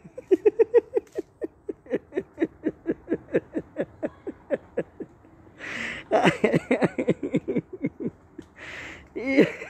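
A man laughing hard: long runs of rapid, evenly spaced 'ha-ha-ha' pulses, broken twice by a gasping in-breath before the laughter starts up again.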